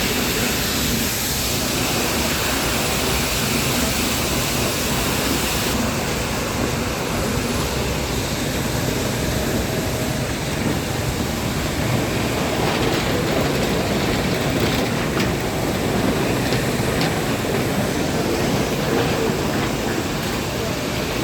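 Nilgiri Mountain Railway toy train running: a steady rumble and rushing noise, with a few faint clicks in the middle.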